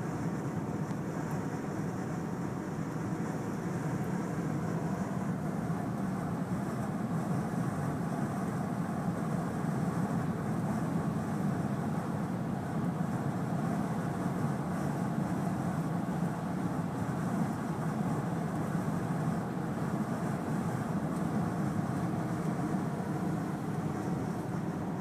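Chevy Tahoe driving past a tanker truck: steady road and engine noise that holds even throughout.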